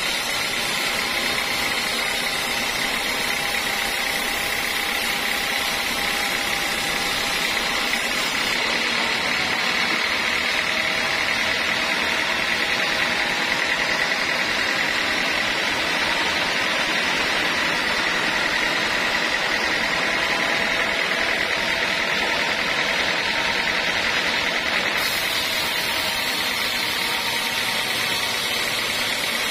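Band sawmill running steadily as its blade cuts lengthwise through a teak log: a continuous machine drone with a steady high whine.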